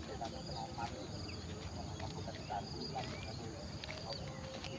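Field ambience: an insect trills in a steady pulsing buzz, birds give scattered short chirps and calls, and a low rumble runs underneath.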